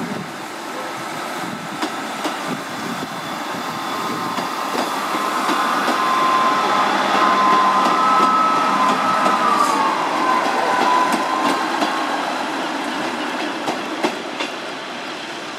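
Diesel multiple unit passing close by: a running rumble with wheels clicking over the rails, growing louder to a peak about halfway through and then fading. A steady high whine runs through the middle and drops in pitch about two-thirds of the way through.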